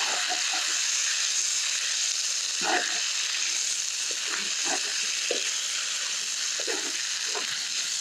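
Fresh rice noodles sizzling steadily in hot oil in a pan, with a cooking utensil scraping and prodding at them now and then to break them apart.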